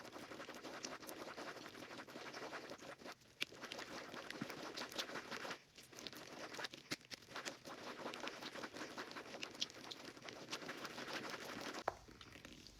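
Thick, glossy slime being stirred and worked with slime activator, a faint, steady crackle of many small sticky clicks that stops briefly a few times.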